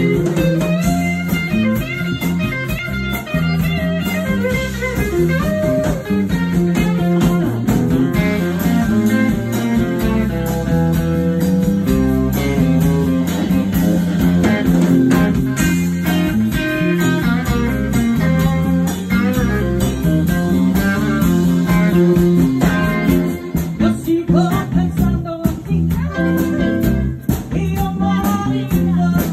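A live band playing a blues tune: electric guitar over bass and drums.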